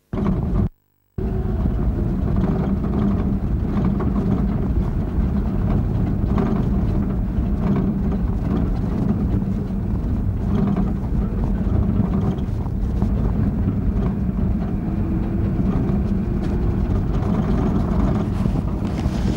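Engine and road noise of a safari pickup truck, heard from inside the cab as it drives along a rough bush track. The sound drops out for a moment about a second in, then runs on steadily.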